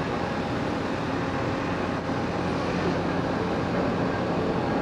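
A large ferry's engines and deck machinery running with a steady low hum and rumble.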